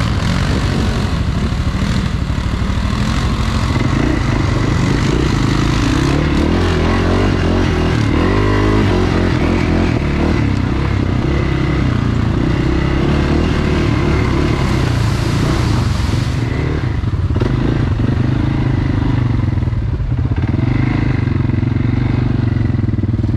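ATV engine running loud and continuously while riding, its note rising and falling a little with the throttle.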